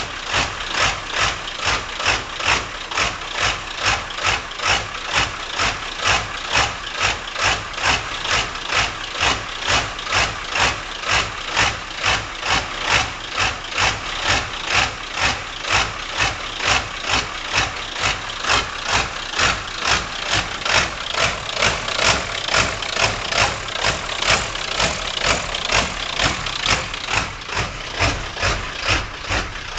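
Ford 7.3 L Powerstroke turbo-diesel V8 idling roughly, with an even pulsing about twice a second. This is the rough idle the owner is chasing: it comes with almost every start-up, throws no codes and smooths out when the throttle is opened.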